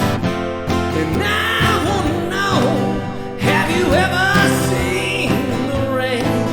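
Acoustic guitar strumming with a voice singing over it; the sung notes slide and bend through the middle of the stretch.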